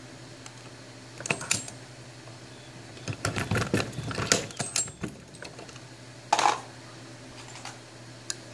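Hornady Lock-N-Load AP progressive reloading press being cycled: metal clicks and clinks as the handle is worked, the shell plate indexes, and brass cases and bullets are set in place. A few clicks come about a second in, a dense run of them from about three to five seconds, and a short burst at about six and a half seconds.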